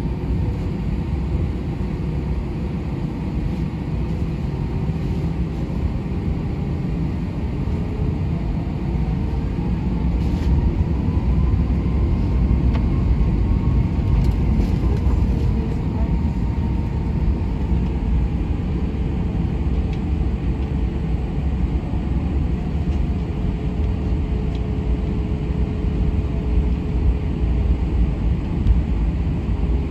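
Cabin noise of an Airbus A320-214 taxiing on its CFM56 engines: a steady low rumble with a faint whine. About ten seconds in the rumble grows and the whine rises in pitch as thrust is added, then the whine sinks back over the next several seconds.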